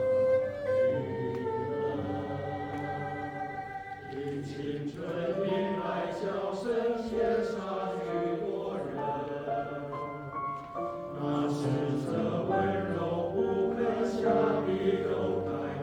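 Music: a Chinese pop ballad sung over accompaniment, with long held notes. About four seconds in, the voice moves into sung words with crisp consonants.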